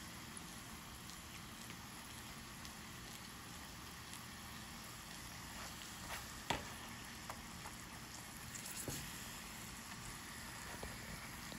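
Corn tortilla frying in hot oil in a skillet: a faint, steady sizzle with small scattered pops. About six and a half seconds in, a single sharp click as the slotted metal spatula meets the pan.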